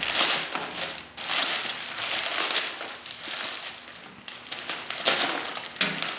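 Packing paper crumpling and crinkling as it is pulled out of a shipping box by hand, in uneven rustling bursts.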